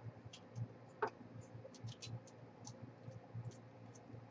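Faint, scattered light clicks and ticks, with one louder click about a second in, from hands handling and fitting small parts on a 3D-printed plastic blaster frame.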